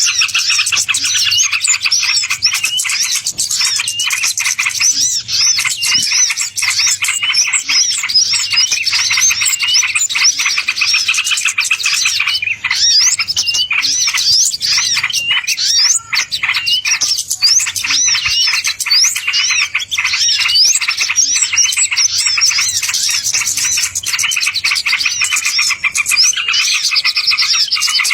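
A dense chorus of small songbirds chirping and twittering rapidly and without pause, many calls overlapping. This is a bird-lure (pikat) recording, played to draw wild birds in.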